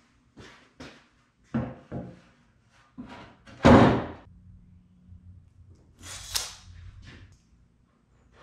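A long cherry board knocked about while handled and then dropped flat onto a wooden workbench with one loud thud, a little under halfway. After it come lighter handling knocks and a short sharp scrape.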